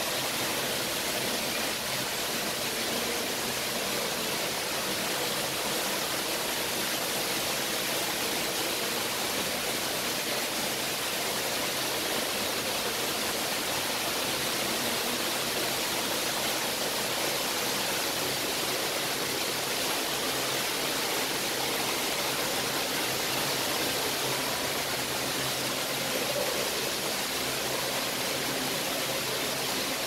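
Steady, even rushing noise like running or falling water, unchanging throughout.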